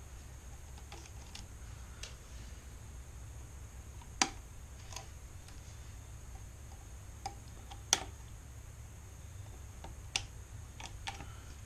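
Small snips cutting and clicking at the car grille's mesh: a scattered series of sharp clicks, the loudest about four and eight seconds in, over a steady low hum.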